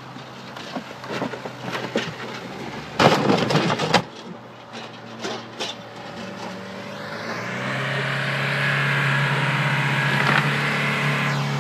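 Car engine running with scattered knocks and a loud clattering crash about three seconds in. From about six seconds the engine revs up and is held at high revs, easing off near the end.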